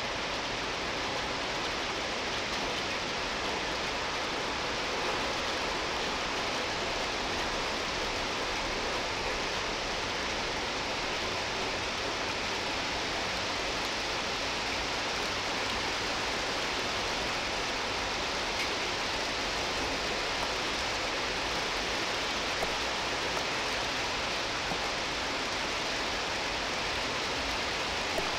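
Steady hiss of a heavy downpour, rain beating on the railcam and the ground around it.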